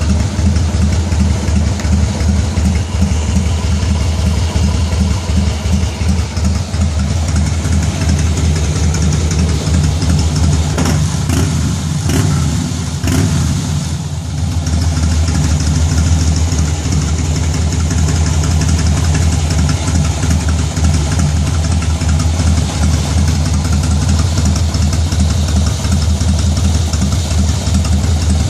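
Harley-Davidson V-twin motorcycle engine idling at a very low speed, about 647 rpm, the idle set through its ThunderMax fuel-injection module. The running dips briefly about halfway through.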